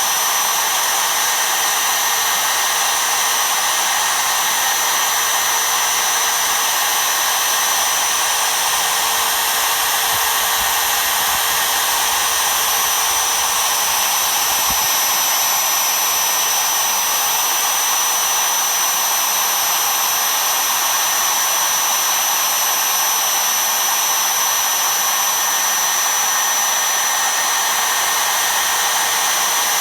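The spindle motor of an MPCNC router running at speed while milling foam: a steady, unbroken high whine with a hiss.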